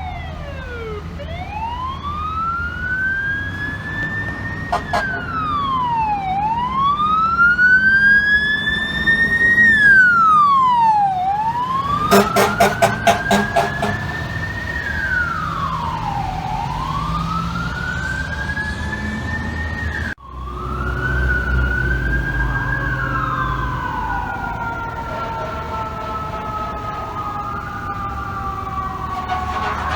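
Fire truck siren wailing up and down in repeated cycles, each a slow rise and a quicker fall, with a quick run of about eight short air horn blasts midway. After an abrupt cut, siren tones slide slowly downward, over the low rumble of the truck's engine.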